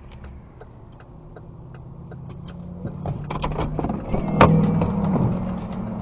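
Vehicle driving on the road: steady engine and road noise that grows louder in the second half, with light regular ticking and a sharp clack about four and a half seconds in.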